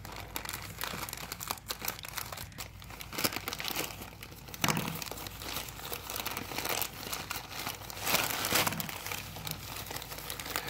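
Crinkling and rustling of a plastic mailer bag being opened and handled by hand, many small crackles, louder about five and eight seconds in.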